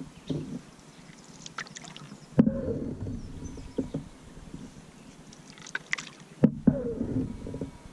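Canoe paddle strokes in calm river water: two strokes about four seconds apart, each beginning with a sharp splash as the blade catches, followed by a second or so of swirling water. Faint drips fall from the blade between strokes.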